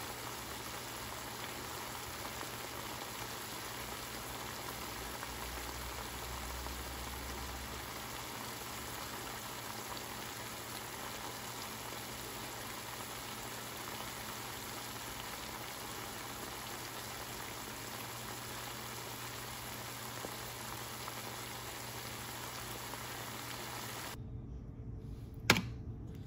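Turkey necks searing in oil in a cast iron skillet: a steady frying sizzle. Near the end it cuts off abruptly and a sharp clink of metal tongs on a pot follows.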